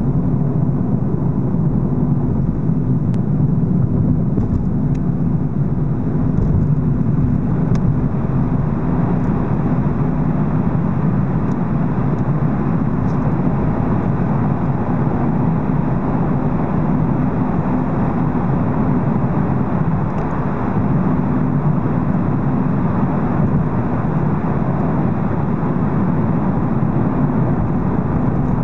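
Car driving at a steady speed through a road tunnel, heard from inside the cabin: a steady low rumble of engine and tyre noise.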